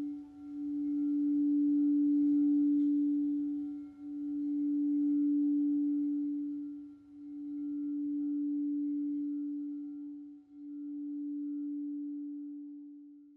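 Singing bowl ringing one steady low tone that swells and dips in slow waves about every three seconds. Each wave is weaker than the last as the ring dies away near the end.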